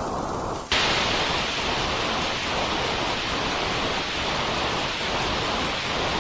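Steady white noise of the kind played to soothe a crying baby, meant to resemble the whooshing heard in the womb. About a second in it switches abruptly from a muffled hiss to a louder, brighter full hiss.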